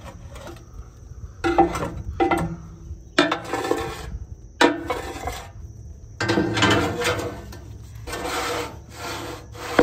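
A steel ash rake scraping ash across the steel floor of a smoker's firebox in a series of separate strokes, with metallic clanks. Near the end the steel charcoal basket is handled, metal on metal.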